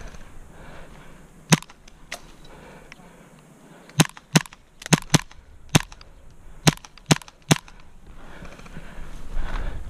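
Gas airsoft pistol fired in single shots, about ten sharp cracks at irregular spacing. One comes near the start, then a quick string follows from about four to seven and a half seconds in.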